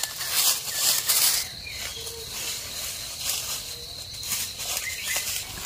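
Dry leaf litter crunching and rustling underfoot for the first second and a half. Then a steady high-pitched insect drone runs on.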